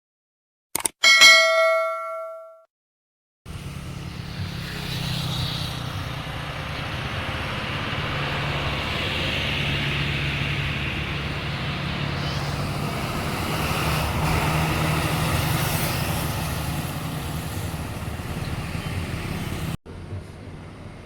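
A single bright bell-like ding about a second in that rings out over a second or so, then a bus engine running with road noise, swelling slightly and cutting off abruptly near the end.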